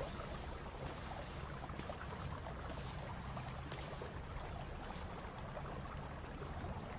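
Steady rushing background ambience, like flowing water, with a faint low hum underneath.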